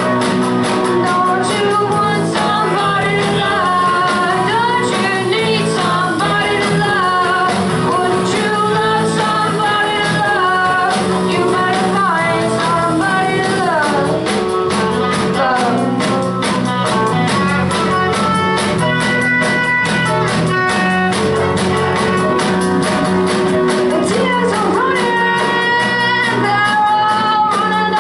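Rock band playing live: electric guitar, bass guitar, drum kit and keyboard, with singing, at a steady loud level.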